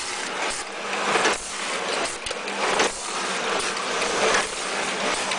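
Multi-material packaging machine for dry cat food running, with a steady hum and the rattle of kibble in its steel feed trays, broken by irregular mechanical clacks.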